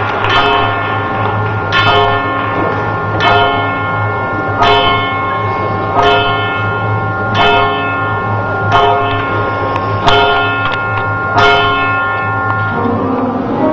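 A deep clock bell striking midnight, about nine even strokes roughly a second and a half apart, each ringing on into the next, over a steady low hum.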